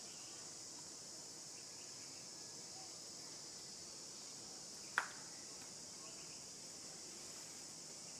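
Steady high-pitched drone of insects. A single sharp click about five seconds in.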